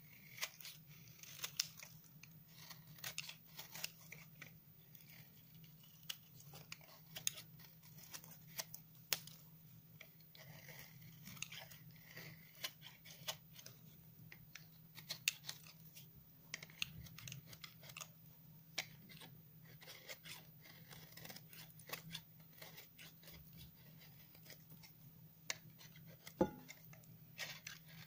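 A bar of 72% laundry soap, dried for nine months until hard and brittle, being shaved with a snap-off utility knife blade: a run of short, crisp scraping crunches as the curls come off, with one sharper crack near the end. A faint low hum sits underneath.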